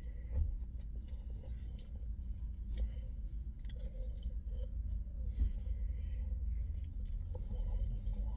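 A man chewing a mouthful of rice and chicken pieces, with scattered small clicks and wet mouth noises over a steady low rumble.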